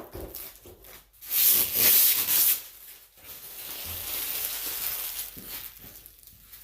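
Plastic rubbing and scraping as a tail light assembly is pushed and worked into its opening in the body: a loud scrape lasting about a second and a half, starting about a second in, then a softer, longer rub.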